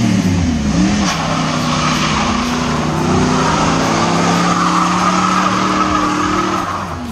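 Car doing a burnout: the engine is blipped up and down for about a second, then held at high revs while the tyres spin and squeal steadily. The revs and squeal drop away shortly before the end.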